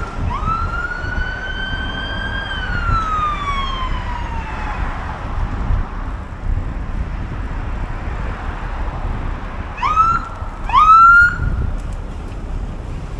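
Emergency vehicle siren: one wail that rises, holds, then slowly falls away over the first five seconds, then two short rising whoops near the end. Wind rumbles on the microphone underneath.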